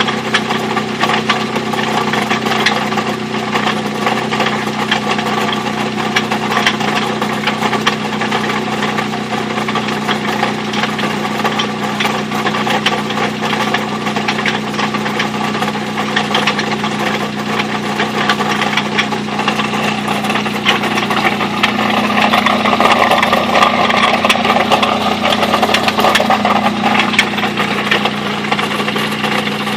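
Mazda B2600i pickup's worn-out engine running at idle with a rapid, steady knock, a little faster and louder for a few seconds about two-thirds of the way through. The knock is the sign of an engine at the end of its life.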